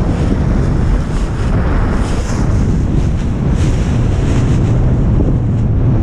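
Loud, steady wind rumble on the camera's microphone from the airflow of a paraglider in flight.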